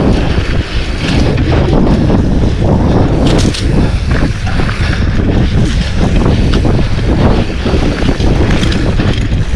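Mountain bike rattling and knocking over a rough dirt trail at speed, with wind buffeting the camera microphone.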